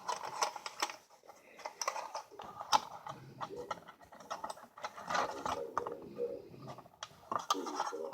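Irregular clicks, taps and scrapes of small metal parts being handled as the Marx #6000 toy diesel locomotive's motor is worked into its frame.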